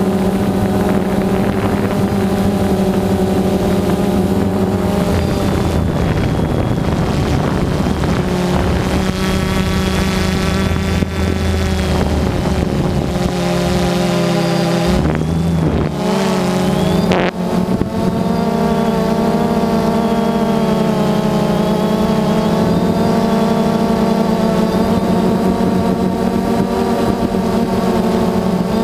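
Multirotor drone's electric motors and propellers buzzing steadily, heard from the onboard camera. The pitch shifts as the motors change speed, with a brief dip and gliding pitch changes about halfway through.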